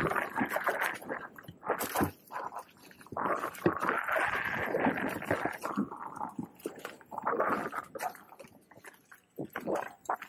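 Riding noise of an electric unicycle on a dirt trail: irregular rumbling and scraping that swells and fades, dropping away briefly near the end.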